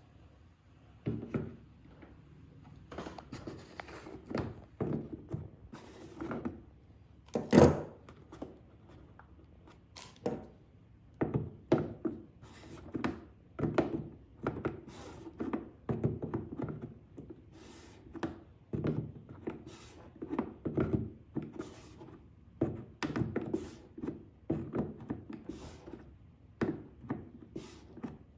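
Irregular series of thunks and knocks from a pipe wrench gripping and turning the black retaining ring on a pressure washer's water inlet, with one heavier clunk about seven seconds in.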